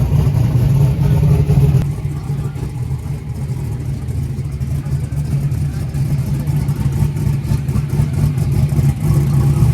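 Turbocharged Oldsmobile Cutlass engine running steadily with a deep, loud exhaust note, changing abruptly about two seconds in.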